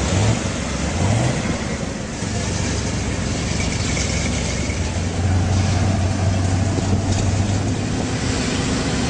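Off-road race vehicle engines: two short rising revs near the start, then a steady engine drone, over a broad rush of noise.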